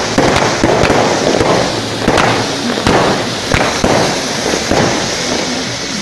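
Fireworks going off: a dense crackle with many sharp bangs, several a second, growing a little quieter near the end.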